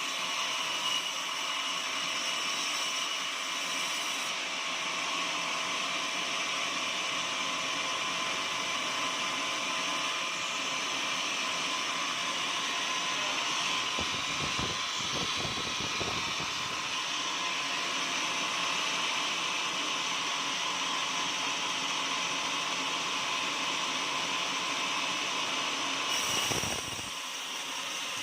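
Portable sawmill running steadily as it saws an oak log, with brief lower rumbles about halfway through and again near the end.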